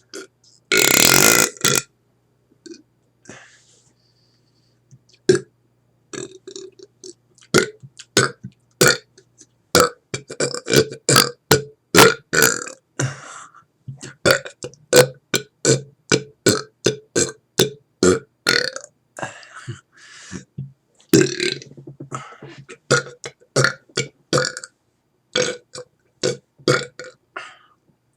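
A man air-burping continuously: a long run of short burps made by swallowing air, coming two or three a second, starting about five seconds in. There is a loud rushing noise about a second in.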